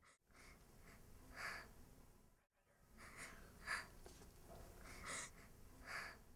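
A girl crying quietly: a handful of short, breathy sobs and sniffles, about one every second.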